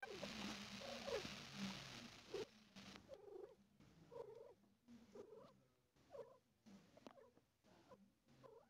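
Mother cat purring softly while giving birth, with short soft sounds about once a second over the purr. A rushing, rustling noise covers the first two seconds or so.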